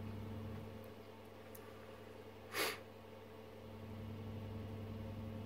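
Low, steady mains hum from the bench test equipment, with one short breathy sniff about two and a half seconds in.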